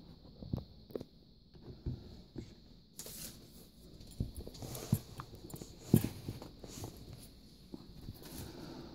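Handling noise: scattered light knocks and rustles, the sharpest knock about six seconds in, over a faint steady hiss.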